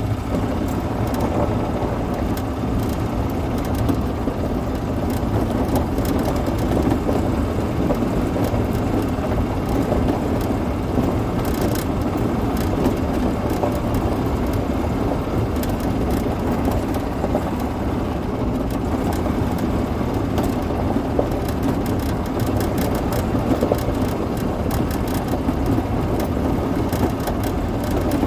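Yamaha golf cart driving along at steady speed: continuous drivetrain and tyre noise, with frequent small clicks and crackles throughout.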